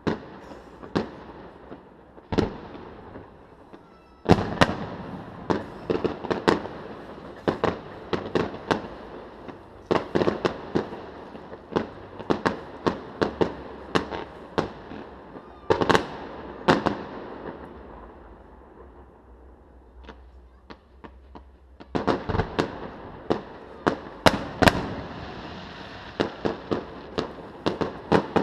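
Fireworks display: aerial shells bursting in a long, irregular run of sharp bangs over a steady crackle. Sparse bangs at first, a dense volley from about four seconds in, a lull about two-thirds of the way through, then another dense volley near the end.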